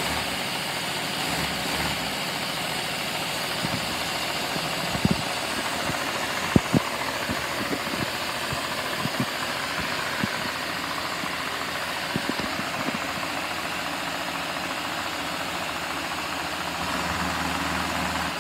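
Lego V8 vacuum engine running steadily: a fast plastic clatter of pistons and valves over a steady hiss of rushing air, with a few louder knocks in the middle stretch.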